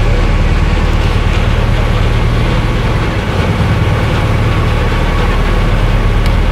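Motorboat's inboard engine running steadily with a low drone, with water rushing and churning along the hull as the boat moves.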